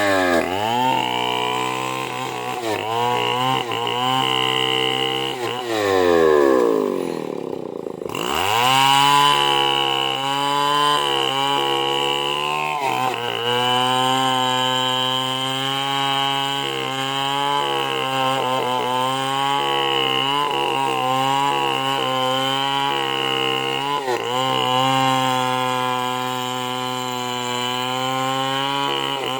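Stihl two-stroke chainsaw cutting into a large Merbau hardwood trunk at high revs, its engine pitch repeatedly dipping as the chain bogs in the hard wood and picking back up. About a quarter of the way in, the revs drop away steeply, then climb straight back to full throttle.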